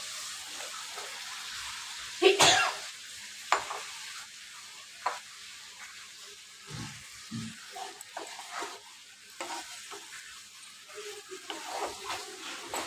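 Onion-tomato masala sizzling in oil in a kadhai while boiled, mashed potatoes are added and stirred in with a wooden spatula. The spatula knocks and scrapes against the pan several times, the loudest knock about two seconds in, with a couple of soft thumps a few seconds later.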